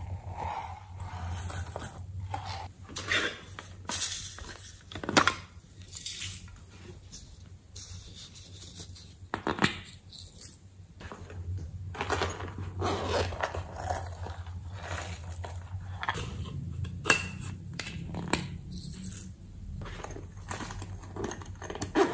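Hands handling and opening small plastic character-shaped cases filled with sequins and beads, giving irregular clicks, knocks and rustles.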